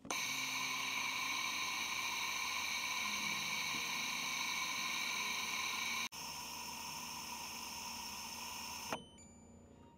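A skin-treatment machine runs with a steady hiss and a high whine. It drops to a quieter level about six seconds in and stops abruptly near the end.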